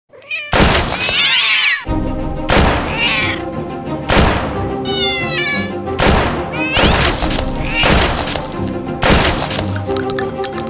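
Background music with a heavy, regular beat, with cat meows over it: a long meow about a second in and shorter ones around three and five seconds in.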